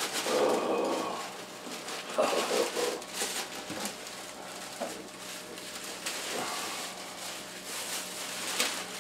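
Crinkly wrapping paper rustling and crackling as it is pulled about in a cardboard box, with irregular small handling knocks. There are brief murmured vocal sounds near the start and again about two seconds in.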